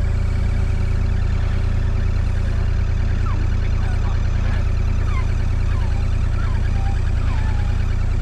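Engine of a work machine running steadily with a deep, even rumble. From about three seconds in, a string of short high squeaks repeats, each one falling in pitch.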